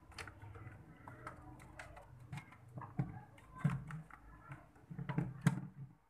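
Irregular clicks and knocks of hands handling wiring and plastic parts inside a refrigerator's freezer compartment, with a few louder knocks about three seconds in and again near five and a half seconds.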